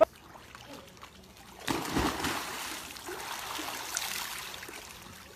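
Swimming-pool water splashing: a sudden splash about two seconds in, then a steady churning wash of water that slowly dies down.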